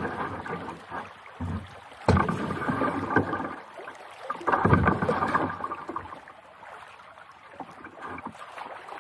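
Kayak paddling on a shallow, rippling river: paddle blades splashing and water swishing past the hull, in three louder surges about two seconds apart, then quieter.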